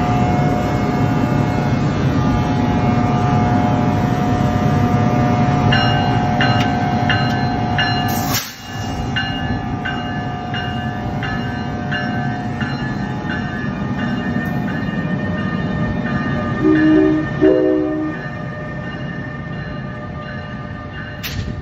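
ALP-46 electric locomotive and its train rolling past at close range: a steady rumble of wheels with a constant electric whine. A bell rings about twice a second from about six seconds in, and two short horn blasts sound near the end.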